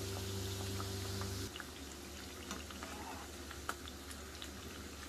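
Rounds of khasta pori dough deep-frying in hot oil in a pan: a soft sizzle scattered with small crackles and pops. A steady low hum runs under it and cuts off about a second and a half in.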